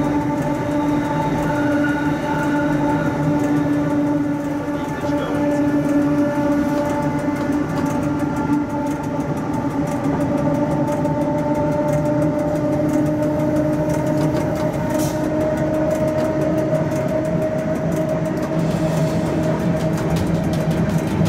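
Cab of a Rhaetian Railway Ge 6/6 II electric locomotive under way: a steady electric hum over the rumble of wheels on rail, with light clicking from the track.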